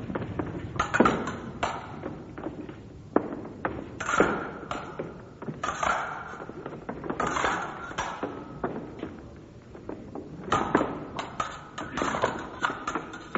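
Fencing blades striking each other in an irregular series of sharp clicks, some with a short metallic ring, mixed with thuds of feet on the floor.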